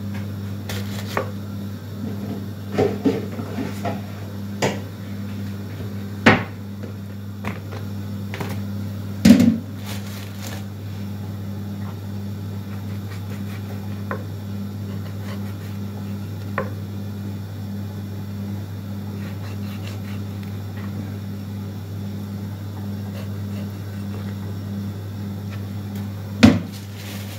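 Kitchen knife knocking and cutting against a wooden cutting board while raw lamb trotters are trimmed: a dozen or so sharp knocks spread irregularly, the loudest about nine seconds in. A steady low hum runs underneath.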